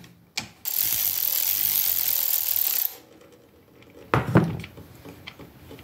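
Ratchet wrench zipping steadily for about two seconds as the oil drain plug on a Yamaha PW50's engine case is spun out, then a single sharp clack about four seconds in.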